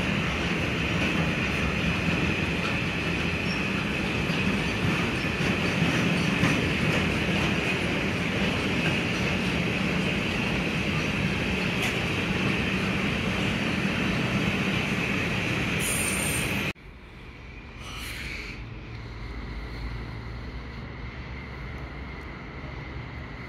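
Long freight train of empty car-transport wagons rolling steadily past, a continuous rumble with a sustained high wheel squeal. About three-quarters of the way through, the sound drops abruptly to a much quieter low rumble.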